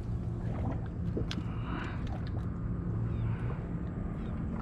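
Steady low hum of a boat's motor, with scattered faint clicks and handling noises as a short flounder is worked off the hook.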